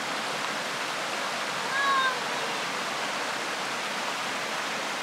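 Mountain stream rushing steadily over rocks and small cascades. A brief high call sounds about two seconds in.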